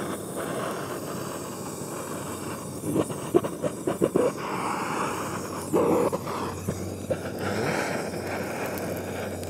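Handheld gas torch fitted with a Searzall attachment running steadily with an even rushing hiss as it sears a steak's fat cap. Scattered crackles and pops from the rendering fat come about three to four seconds in and again near six seconds.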